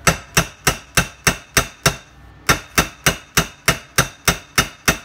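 A hammer pounding a double ferrule flat on a 3/64-inch snare cable laid across a bench vise's jaws, crimping it. The blows are sharp and steady, about three a second, with a short pause about two seconds in.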